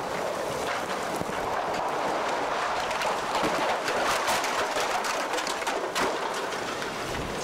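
Hurricane wind and rain: a steady rush of noise with rain striking in many small sharp taps, swelling a little midway.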